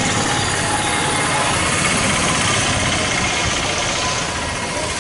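Yamaha R15 motorcycle's single-cylinder engine running steadily at low speed, mixed with a steady rush of road and wind noise.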